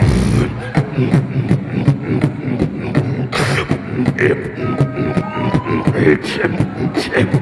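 Beatboxing, amplified through a handheld microphone: rapid mouth-made kick and snare sounds in a fast, dense pattern. Between about four and a half and five and a half seconds in there are a few held humming tones and a short rising pitch glide.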